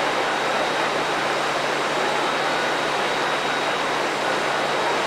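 Steady rushing noise of a narrow-gauge excursion train in motion, heard from an open passenger car: the wheels running on the rails and air moving past, with no distinct knocks or rail-joint clicks.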